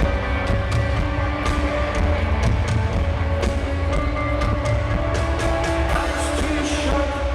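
Live rock band playing, with steady bass, sustained guitar notes and regular drum hits.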